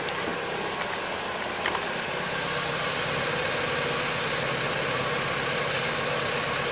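Sailboat's inboard engine running steadily, its low hum growing firmer about two seconds in, over a constant hiss of wind and water.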